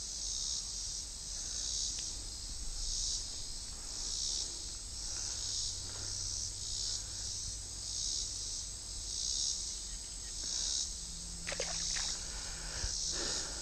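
Chorus of insects, a high buzzing that swells and fades about every two-thirds of a second. A few faint clicks come near the end.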